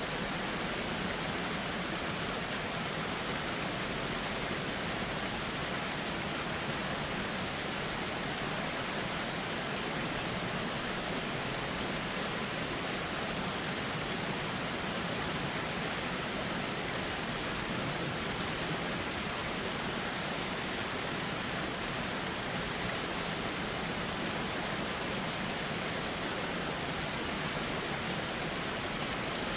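Steady rush of a flowing river, an even wash of water noise with no distinct splashes or changes.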